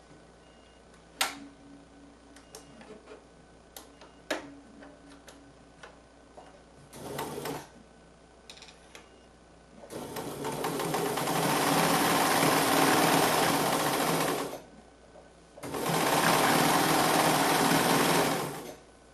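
Bernina 940 sewing machine stitching in runs: a few sharp clicks, a brief run about seven seconds in, then two longer steady runs of several seconds each with a short pause between them.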